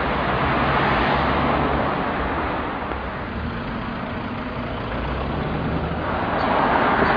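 Street traffic: motor vehicles driving past with engine hum and tyre noise. The noise swells as vehicles pass, about a second in and again near the end.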